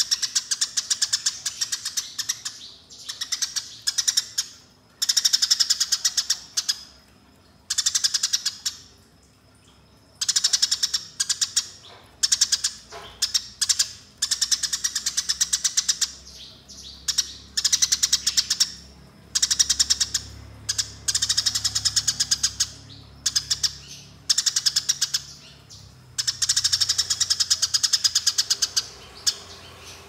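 Eurasian tree sparrow giving its rolling, fighting-style chatter: rapid bursts of harsh chirps, each lasting a second or two, with short pauses between.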